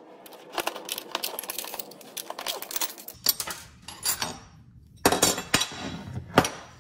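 Small metal parts clinking and knocking as a brake booster with its bolted-on steel bracket, nuts, washers and an open-end wrench is handled and turned over on a workbench. The knocks come irregularly, louder and closer together from about five seconds in.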